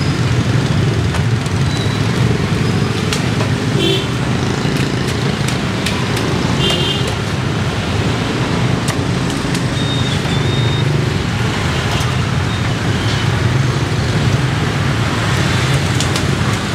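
Steady street traffic noise with several short horn beeps, over light taps of a knife slicing roast pork on a wooden chopping board.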